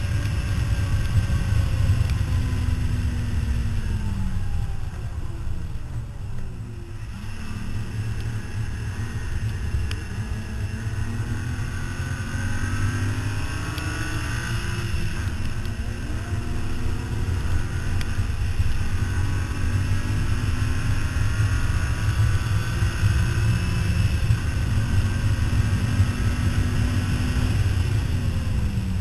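Car engine driven hard around a track: its note drops as the car slows about five seconds in, climbs again under acceleration, and falls once more near the end, over heavy wind and road rumble on the microphone.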